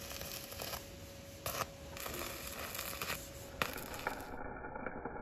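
Electric arc welding on a steel beam: the arc crackles and sizzles steadily, with a few brief breaks. A little over four seconds in, the sound turns dull and muffled.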